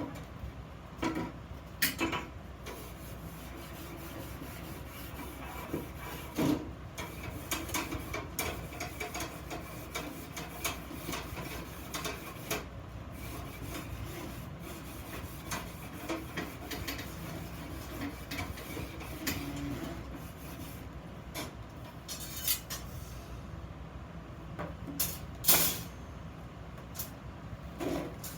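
Iron pieces being handled and worked by hand: scattered knocks and light clinks of metal with some rubbing and scraping, a louder knock about 25 seconds in.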